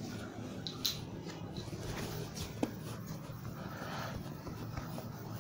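Whiteboard duster wiping marker off a whiteboard: faint rubbing swishes, clearest about four seconds in, with a couple of light taps.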